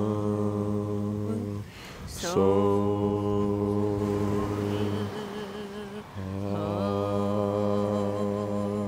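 Voices chanting a meditation mantra in long, steady low notes. One held note ends about a second and a half in, then comes a short breath. Another held note follows, and a third begins about six seconds in.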